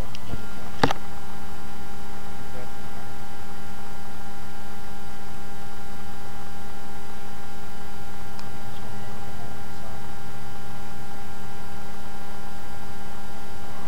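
Steady electrical hum made of several pitched tones, with one sharp click about a second in.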